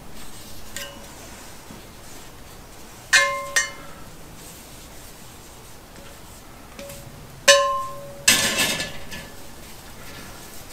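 Cast iron skillets and steel tongs clanking against a charcoal grill's metal grate as the pans are shifted, each strike ringing briefly. There are two sharp clinks a few seconds in, then another clink and a short grating scrape later on.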